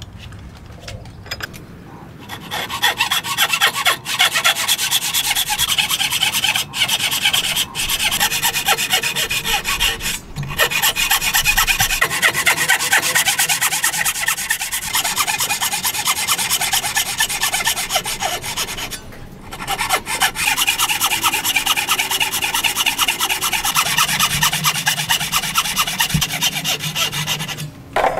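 Hand saw cutting across a wooden beam, running in fast, even back-and-forth strokes. It cuts in several runs with brief breaks, making the kerfs for a joint along marked lines.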